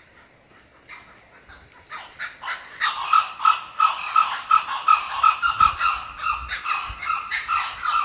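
Kookaburra giving its laughing call: a rapid string of repeated notes, about four a second, that starts faint and swells to full volume about three seconds in.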